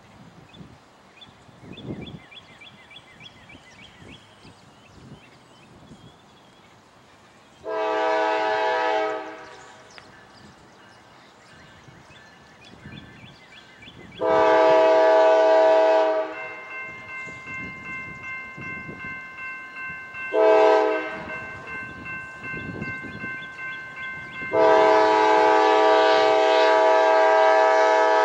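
Nathan K5LA five-chime air horn on a Norfolk Southern GE C40-9W locomotive sounding the grade-crossing signal: two long blasts, a short one, then a final long blast, the loudest and longest. Between the blasts a crossing bell rings steadily.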